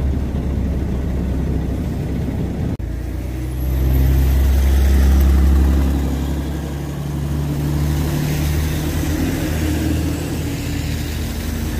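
Diesel engine of a Mercedes-Benz O305 city bus running, heard from inside the cabin. After a sudden cut about three seconds in, a bus diesel engine is heard from the roadside, growing louder for a few seconds as it pulls away, then easing off, with a second swell near the end.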